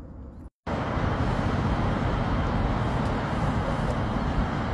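Steady city road traffic noise, cutting in abruptly about half a second in after a brief silence.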